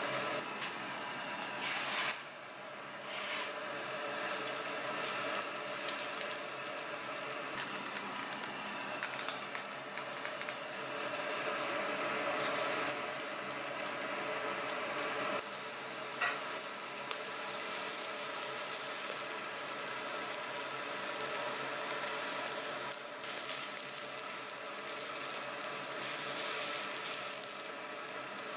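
Pork offal, pig intestines among it, sizzling on a wire mesh grill over glowing charcoal: a steady hiss, with a few sharp clicks at about 2, 12 and 16 seconds in.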